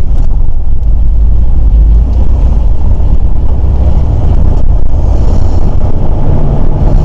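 Loud, steady low rumble of a vehicle driving slowly through a campground, engine and road noise heard from inside the cab.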